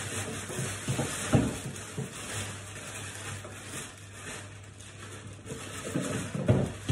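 Rummaging through kitchen things out of sight: rustling, with a few light knocks and clatters as items are moved, the loudest about a second in and again near the end.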